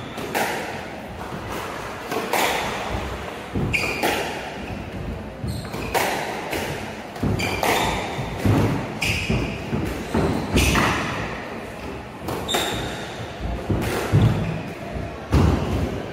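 Squash rally: the ball cracking off rackets, walls and the wooden floor about once a second, each hit echoing in the enclosed court, with short high squeaks of shoes on the floor.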